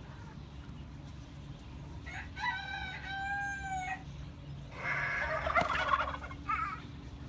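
A rooster crows once, a long call held for under two seconds starting about two seconds in. About five seconds in, a second, rougher fowl call follows.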